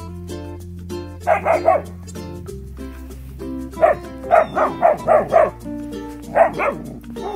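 German Shepherd puppy barking, about a dozen short barks in three bursts, the middle burst the longest, over background music.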